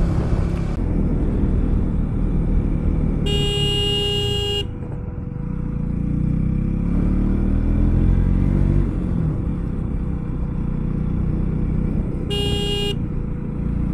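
Motorcycle engine pulling up a steep road, its pitch rising and falling as it goes. A horn sounds twice: one long blast a few seconds in and a short one near the end.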